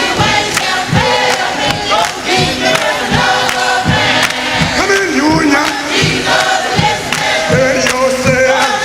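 Music: a song with a steady drum beat, about two beats a second, under singing voices.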